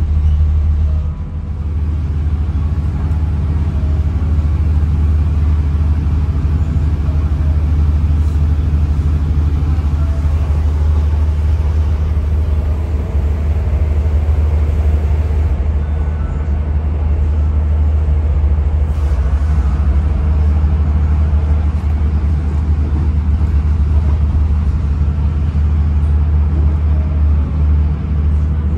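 Diesel commuter train running, heard from inside the passenger carriage: a steady, loud low rumble of engine and wheels on the track.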